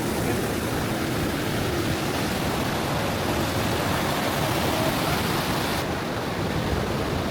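Steady rushing of water from the Stock Ghyll Force waterfall, an even hiss with no breaks.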